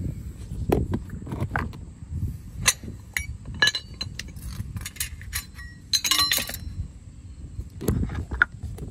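Scattered metallic clinks and rattles, a few of them ringing briefly, with a quick cluster about six seconds in, over low rumbling handling noise, from work on the exhaust under the vehicle.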